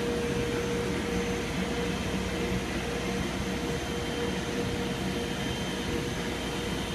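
Chicago Pneumatic QRS-20 rotary screw air compressor running unloaded after reaching its cut-out pressure, blowing down rather than building air. It gives a steady, even rushing noise with one steady mid-pitched tone.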